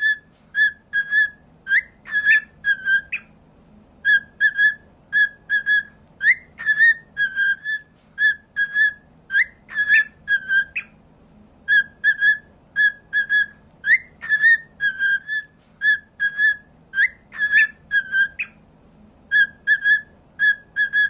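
Cockatiel whistling its song: short, clear notes at one pitch repeated in quick pairs and triples, with brief upward-sliding notes between the phrases.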